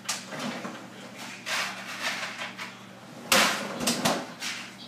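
Kitchen clatter of someone fetching ice cubes: a few rustles and knocks, the loudest a sharp knock a little over three seconds in.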